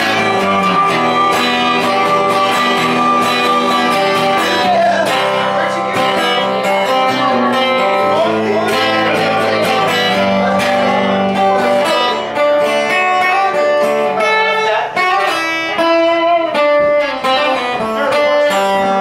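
Guitar playing an instrumental passage of picked notes and chords, with no singing.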